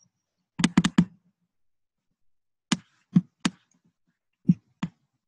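Clicks on a laptop while a screen share and slideshow are being set up: a quick run of three or four about half a second in, then single clicks every half second to a second.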